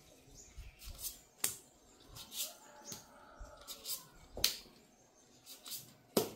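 A series of irregular sharp clicks and taps, about eight of them spread over several seconds, the loudest about four and a half seconds in and another just before the end.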